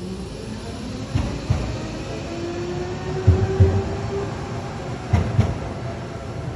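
An articulated electric tram rolling past close by, its wheels knocking over a gap in the rails in pairs of heavy thumps, three pairs about two seconds apart, with a faint rising motor whine partway through.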